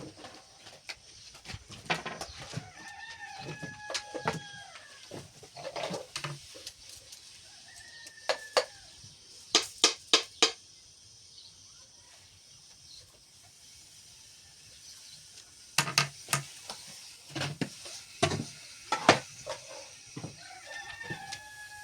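A rooster crowing three times, each a held call that drops at the end, with bursts of sharp knocks in between, four in quick succession near the middle.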